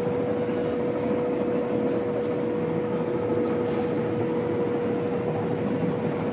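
Combine harvester running steadily while cutting wheat: an even mechanical hum with a constant whine.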